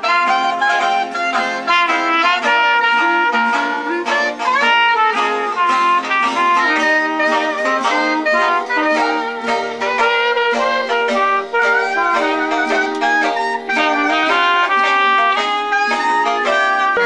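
A small jazz group playing live: clarinet and trumpet carrying the melody over an acoustic guitar.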